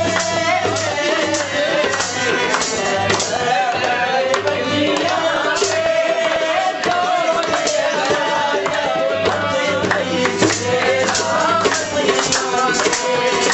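Qawwali music: a wavering, sustained melody line over steady rhythmic percussion.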